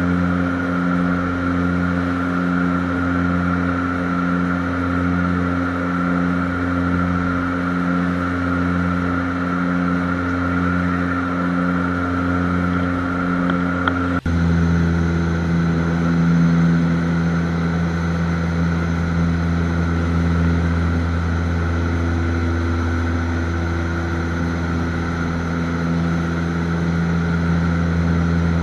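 A steady engine drone with several level tones that pulse slowly and evenly; about halfway through the pitch mix changes suddenly and the drone runs on steady.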